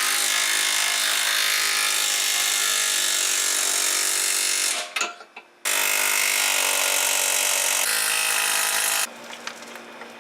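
Power tool running steadily at full speed in two long runs, cutting off about five seconds in and again near the end, while the rebuilt rear subframe is drawn back up into the car.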